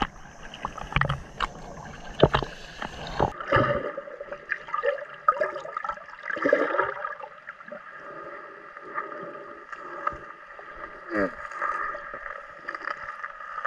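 Water slapping and splashing around a camera at the sea surface, then about three and a half seconds in the camera goes under. After that the sound is muffled underwater sound with bubbling gurgles and scattered clicks and knocks as hands work among the mussels.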